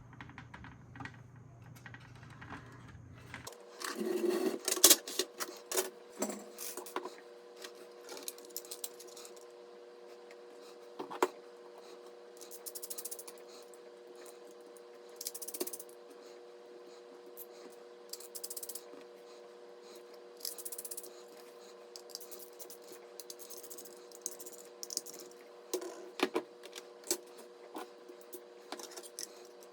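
Clicks, taps and rattles of small hard parts being handled during a PC build, loudest about four to five seconds in, over a steady low hum that starts a few seconds in.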